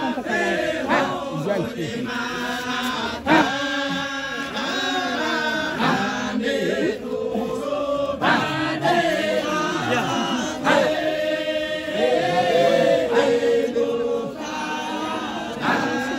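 A group of men chanting together, many voices overlapping on a held, bending melodic line without pause.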